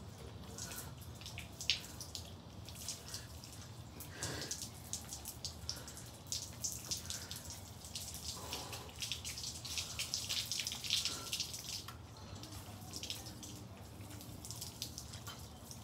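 Water from a garden hose spraying over a person's body and splashing onto wet concrete: an uneven, continuous spatter of drips and splashes.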